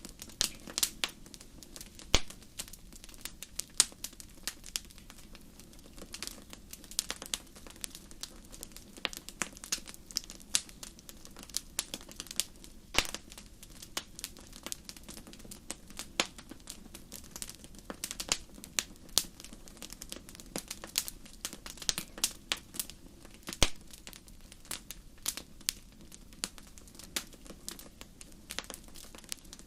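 Wood fire crackling: irregular sharp pops and snaps, several a second, some much louder than others, over a low steady rush of flame.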